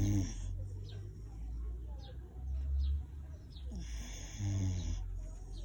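Dog snoring in its sleep: two long snoring breaths, one at the start and one about four seconds in, each a low rattle with a hiss over it.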